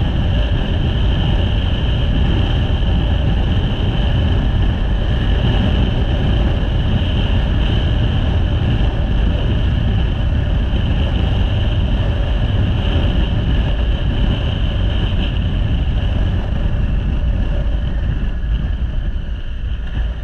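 Motorcycle on the move: wind rushing over the microphone over the running engine and tyres, a steady roar that eases near the end as the bike slows.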